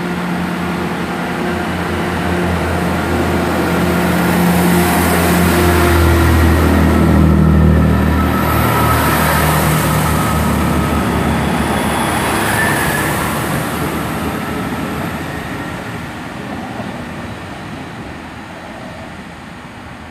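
Class 165 diesel multiple unit departing. Its diesel engines drone as it pulls away and passes close, together with wheel and rail noise. The sound is loudest about halfway through, then fades as the train draws off into the distance.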